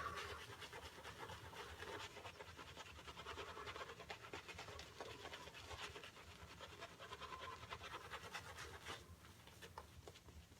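Boar-bristle shaving brush working wet tallow-soap lather on a face: a faint, continuous scratchy swishing of quick strokes as water is worked in to build the lather.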